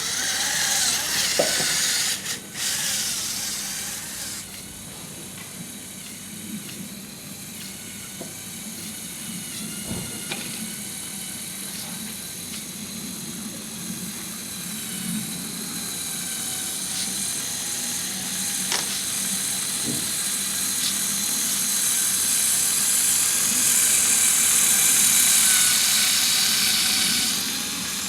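Small electric motors and plastic gears of a Lego Technic off-road vehicle whining as it drives. The pitch shifts with load, with a few clicks, and it grows louder near the end.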